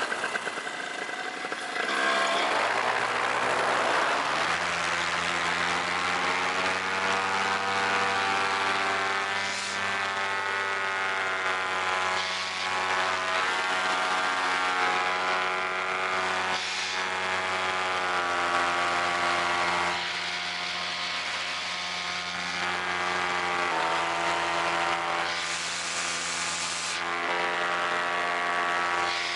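A paramotor's Vittorazi Moster 185 two-stroke engine and propeller throttle up about two to four seconds in, then run steadily under power. There is a brief rushing hiss near the end.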